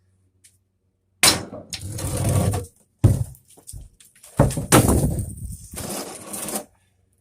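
Door and doorknob hardware being handled and turned over, with metal clattering and scraping: a sharp clank about a second in, a click near three seconds, then a longer run of rattling and scraping.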